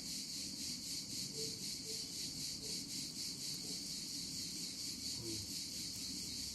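A wood-burning vortex stove running hard with its door open, its fire making a low, steady rush. Over it, a steady high-pitched insect chirring pulses rapidly and is the loudest sound.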